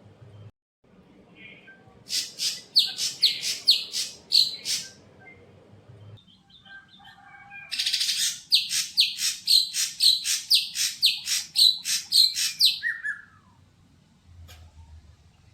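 Cucak hijau (greater green leafbird) singing in two bouts of rapid, repeated sharp chirping notes, the second bout ending in a short falling note.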